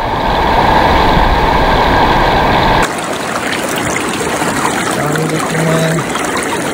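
Fast-flowing river water rushing, with a heavy low rumble on the microphone. About three seconds in it changes abruptly to closer splashing and trickling water moving through a mesh landing net held in the current.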